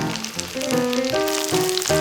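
Tofu balls frying in hot oil, a steady sizzle with fine crackling that grows stronger about halfway through, under background music with a stepping melody.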